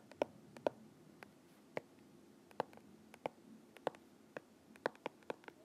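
Stylus tapping and clicking on a tablet screen during handwriting: about a dozen faint, sharp clicks at irregular intervals.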